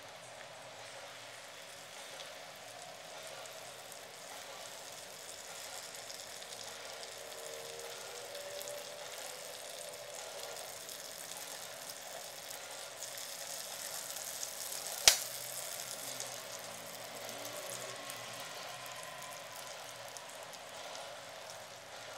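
Butter and sugar melting in a nonstick frying pan, the butter bubbling with a steady faint sizzle and crackle that builds slowly. A single sharp click about two-thirds of the way through.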